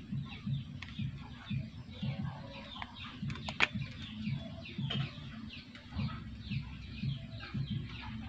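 Chickens in the background: low, rhythmic clucking about twice a second under many short, high chirps that fall in pitch. A single sharp click comes about three and a half seconds in.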